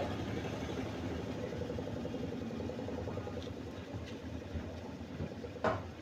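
Washing machine running with a steady mechanical hum, and a single sharp knock near the end.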